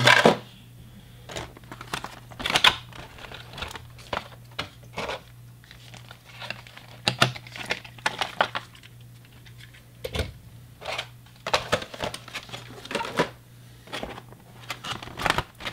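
Clear plastic clamshell packaging crinkling and clicking irregularly as it is handled and model tank cars are lifted out of it.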